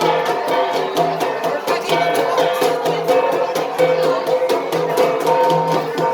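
An ensemble of gangsa, flat bronze gongs, played in a fast, steady rhythm: many quick strikes with ringing tones, the pattern repeating about once a second.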